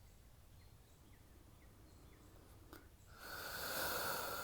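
A woman's long, breathy exhale, a sigh, starting about three seconds in after a small mouth click, over a faint quiet outdoor background.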